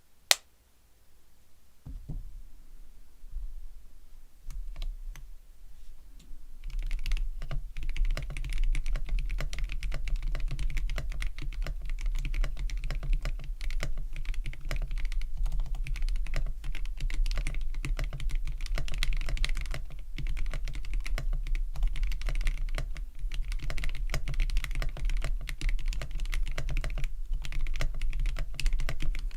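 Typing on a GammaKay K66 mechanical keyboard fitted with Gateron Yellow linear switches that have been lubed and filmed. There is a single sharp click just after the start and a few scattered keystrokes, then fast continuous typing from about seven seconds in.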